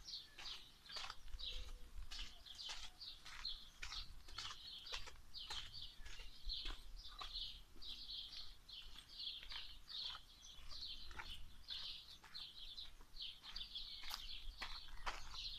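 Faint, rapid high-pitched chirping, several chirps a second, with footsteps on a dirt path.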